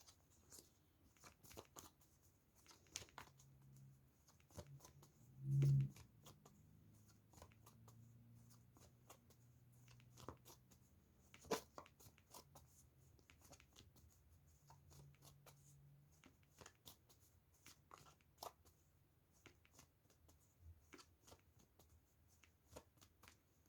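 Tarot cards being shuffled and laid out by hand, faint scattered clicks and rustles of card on card. A brief low hum about five and a half seconds in.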